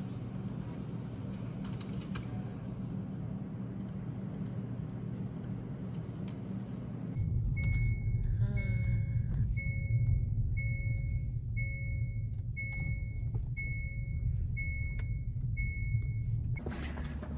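A car's warning chime beeping about once a second, nine times, over the low rumble of the car's cabin. Before it, a steady low hum.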